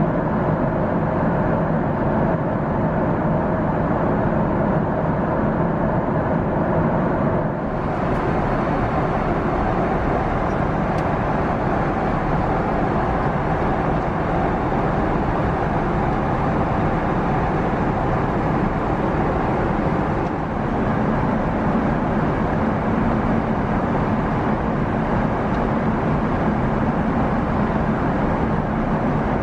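Steady cabin roar of a Boeing 777-300ER in cruise: engine and airflow noise heard from inside the cabin, with two brief dips in level.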